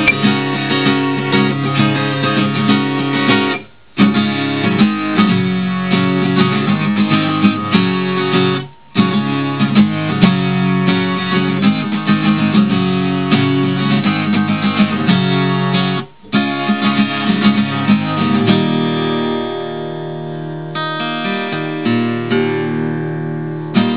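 Simon & Patrick Songsmith Folk acoustic guitar (spruce top, laminate cherry back and sides) played unamplified with the fingers over the soundhole, a continuous run of picked notes and chords. It stops briefly three times, about 4, 9 and 16 seconds in, and in the last few seconds the notes are sparser and left to ring before fading out.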